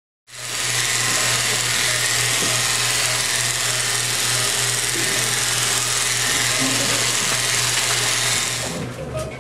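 Oster electric animal clippers running, a steady electric hum with a buzzing hiss as they shave the belly fur of a sedated wolf for surgical prep. The hum cuts in just after the start and dies down near the end.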